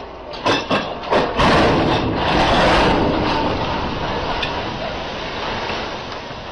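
A few sharp knocks, then a big splash and rushing, churning water as a boat hull drops into muddy water. The wash slowly dies away.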